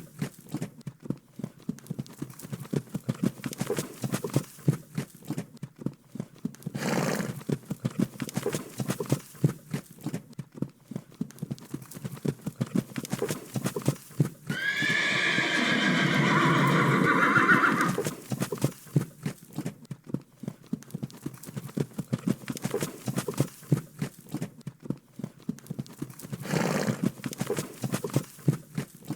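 Horse hooves clopping in a rapid, continuous patter, with one horse neighing loudly for about three seconds midway. Two brief noisy bursts come about a third of the way in and near the end.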